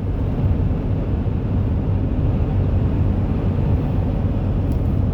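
Steady engine and road noise of a truck being driven, a constant low rumble heard from inside the cab.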